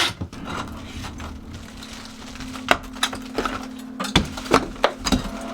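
Irregular sharp knocks and cracking of old plaster and wood lath being broken out of a wall, the hits coming faster about four seconds in, over a steady low hum.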